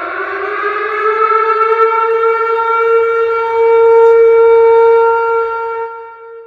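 Tornado warning siren sounding one long wail: its pitch rises over the first few seconds, holds steady, then the sound fades away near the end.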